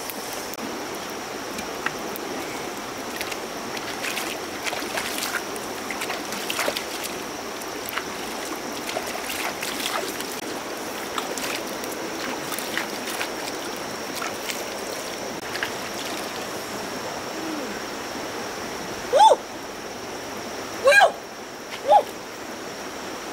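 Shallow stream flowing and trickling over rocks, a steady rushing with small splashy clicks. Near the end, a person's voice breaks in three times with short, loud exclamations.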